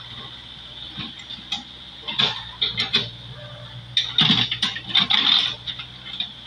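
Backhoe's diesel engine running steadily, with two bursts of louder noise about two seconds in and again about four seconds in.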